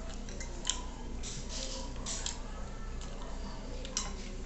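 Close-miked eating sounds: chewing with soft wet mouth clicks and a few sharp ticks of a metal fork against a ceramic plate of spaghetti and meatballs. A low steady hum runs underneath.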